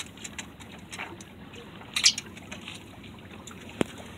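Water sloshing and trickling along a small sailboat's hull, with scattered rustles and knocks of sail cloth being gathered at the mast; a louder brief rustle about two seconds in and a sharp click near the end.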